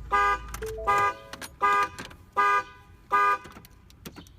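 2015 Ford Fusion's anti-theft alarm sounding the car horn in short, evenly spaced blasts, about one every three-quarters of a second. After five blasts it stops near the end, as the alarm is shut off with the remote key.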